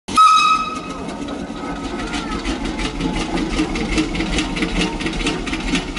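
A short whistle-like tone, then a machine running with a steady rhythmic clatter, about four to five beats a second, over a low rumble.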